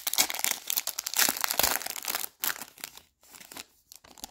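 Foil wrapper of a 2022-23 Panini Revolution basketball card pack being torn open and crinkled by hand: dense crackling for about two seconds, then a few softer crinkles.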